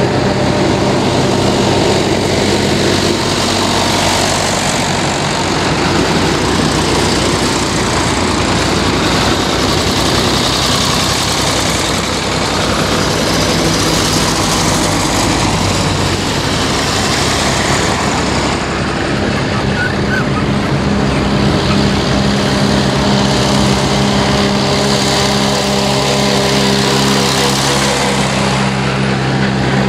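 Vintage tractor engines running steadily as a line of old tractors drives past one after another, a new engine note joining about two-thirds of the way through as the next tractor draws near.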